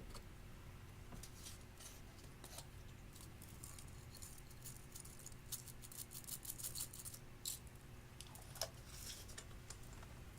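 Glossy slime being squished and stretched by hand, giving soft sticky clicks and small pops. The clicks come thickest in a rapid run around the middle.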